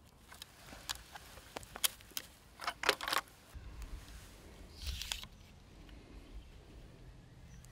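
Scattered clicks and light knocks from a scoped crossbow being handled and lifted, with rustling of clothing and dry leaves. The loudest is a quick cluster of clicks about three seconds in, and a brief rustle comes about five seconds in.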